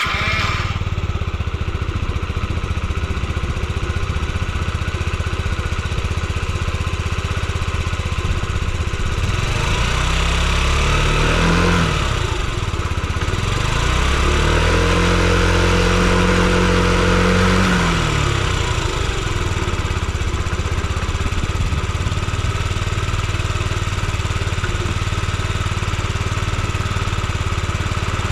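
Yamaha Gear scooter's 50 cc single-cylinder engine catching and idling steadily, blipped up briefly about ten seconds in and then held at higher revs for a few seconds before dropping back to idle. It runs quietly, with no abnormal engine noise.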